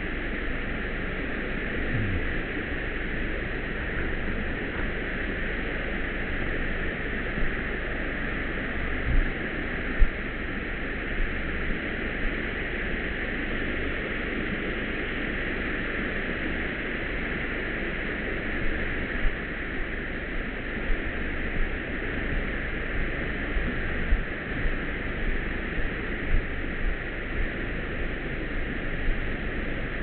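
Small waterfall rushing steadily over a rock slab, an even hiss of falling water. Scattered low thumps, most of them in the second half, from the handheld camera being carried.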